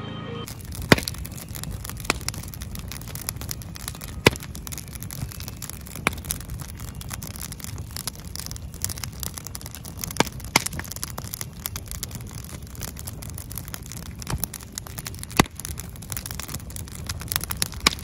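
Large wood campfire burning, crackling with irregular sharp pops over a steady low rush; the loudest pops come about a second in and about four seconds in.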